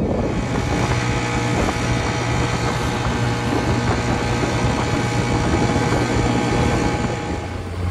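Small tiller outboard motor pushing a plywood dory, running at a steady speed, with a constant low hum that settles in about a second in, over wind and water noise.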